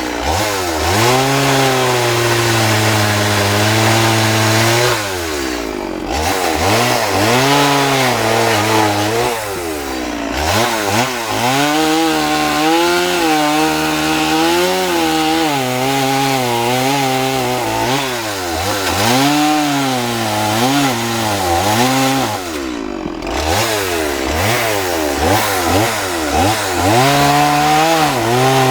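Chainsaw with a small carving bar cutting into a wooden log. The engine's pitch keeps rising and falling as it bogs under load and frees up, and it drops back briefly a few times, near 6, 10 and 23 seconds.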